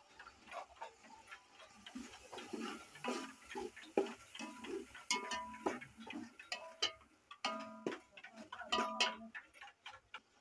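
A metal slotted spoon stirring masala frying in ghee in an aluminium pot, with irregular clinks and scrapes against the pot's sides and bottom. Some strikes leave a brief metallic ring, and there is a faint sizzle.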